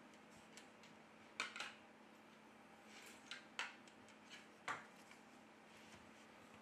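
A handful of faint, sharp clicks and taps as a smartphone is handled and turned over on a hard surface, with a low steady hum underneath.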